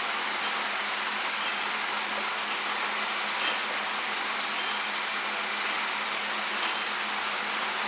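Light metallic clinks of a knife blade knocking against a cake turntable as it trims the edge of a sponge cake, several spaced a second or two apart, the loudest about three and a half seconds in, over a steady hiss.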